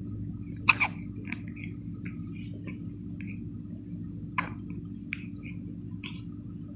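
Baby hiccuping: a few short, sharp hics at uneven gaps, the loudest about a second in, over a steady low hum.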